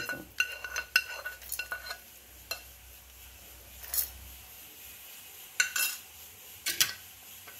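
Steel spoon and pan clinking and scraping against a stainless-steel mixer-grinder jar as fried lentils and spices are tipped and scraped in. A quick run of ringing clinks comes in the first two seconds, then a few single taps and knocks.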